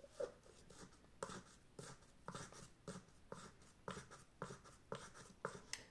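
A wooden stick pushing crushed dried oak leaves down through a plastic funnel into a glass jar: quiet, scratchy rustling strokes, about two a second.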